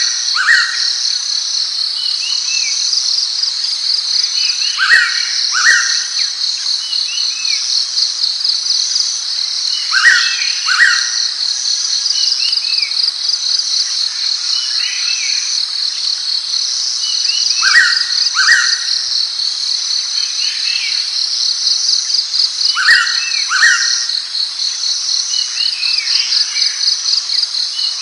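Blue-winged pitta calling, a clear two-note whistle repeated five times about every five seconds, over a steady fast-pulsing insect drone.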